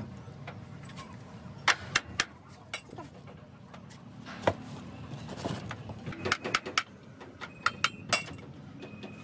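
Metal tools and parts clinking and knocking: a scattered series of sharp clinks, a cluster of them about six to eight seconds in, a few ringing briefly.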